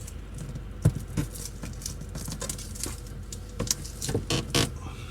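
Small decorations being handled and put up by hand: irregular light clicks, taps and rustles, with a sharper knock just under a second in.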